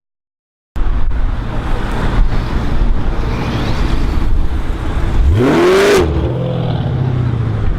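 Dodge Challenger SRT8's Hemi V8 running loud, starting just under a second in, with one sharp rev that rises and falls about five seconds in before the engine settles back to a lower, steady note.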